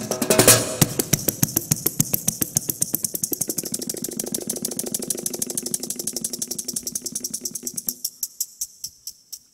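Percussion played on motorcycle luggage cases used as drums, aluminium side cases and plastic top cases: one loud hit near the start, then a fast, even roll of strokes that slowly gets quieter. A low ringing under the roll stops about eight seconds in, leaving lighter, sparser ticks.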